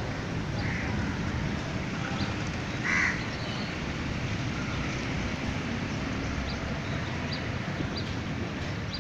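A crow caws once, loudly and briefly, about three seconds in, over a steady outdoor background hiss, with a fainter call near the start.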